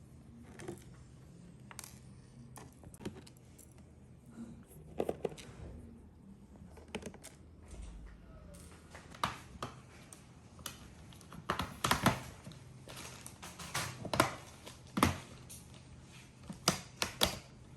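Irregular clicks and taps of small hand tools and plastic or metal parts being handled on a laptop, sparse at first and busier and louder from about halfway through, over a faint low hum.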